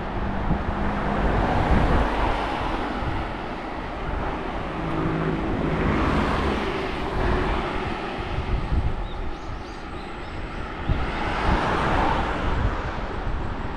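Wind buffeting the microphone, with road noise while riding. Vehicles swell past about two, six and twelve seconds in.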